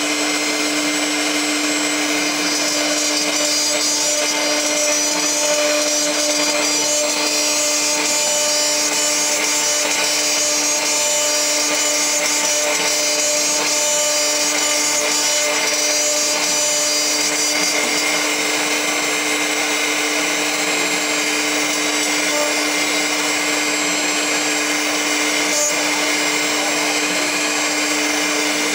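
CNC milling machine spindle running at a steady pitch while an end mill cuts an aluminium part, with a steady hiss from the mist coolant nozzle. The mix of machine tones changes a little past halfway through the cut.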